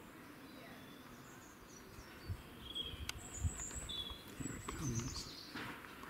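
Small garden birds chirping: a few short, high chirps between two and five seconds in, over low rumbling and a sharp click.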